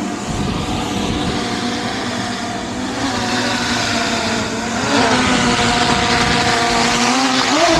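DJI Mini 3 drone hovering close overhead, its propellers giving a steady pitched buzz over wind noise on the microphone. The pitch rises briefly about five seconds in and again near the end as the drone adjusts its hover.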